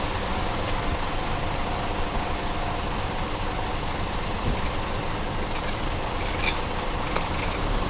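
Road vehicle engines running and idling in steady traffic, cars and trucks together.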